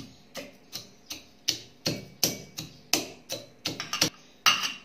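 Steel pestle pounding cumin seeds, black peppercorns and garlic cloves in a small steel bowl, crushing them coarsely. Regular sharp metal-on-metal strikes, about three a second.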